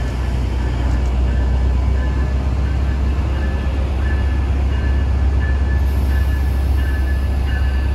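Train running with a loud, steady low rumble, with a short high ringing tone repeating about twice a second.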